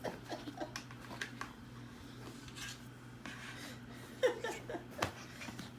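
Plastic LEGO pieces clicking and clattering as they are handled and fitted together: scattered light clicks, over a faint steady hum.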